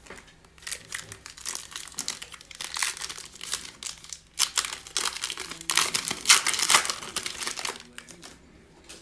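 Foil trading-card pack wrapper being torn open and crinkled by hand: a run of sharp crackles in uneven spells, loudest about two-thirds of the way through.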